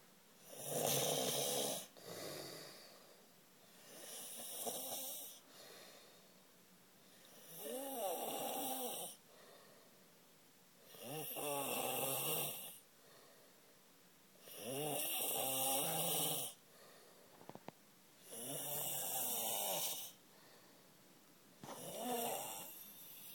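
A sleeper snoring loudly and regularly: about seven snores, one every three to four seconds, several with a wavering pitched drone that is likened to a cow's.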